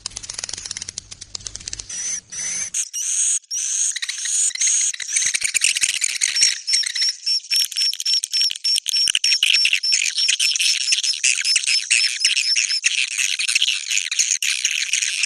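Dense chorus of small songbirds chirping and trilling on a bird-lure call track. A low rumble lies under it for the first couple of seconds. From about halfway through, one bird repeats a short high note several times a second.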